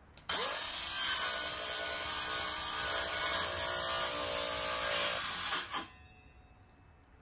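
Cordless circular saw starting with a rising whine and cutting wood for about five seconds, then stopping and winding down.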